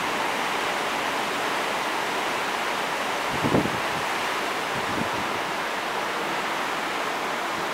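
Steady rushing noise, with a short low thump about three and a half seconds in and a fainter one about five seconds in.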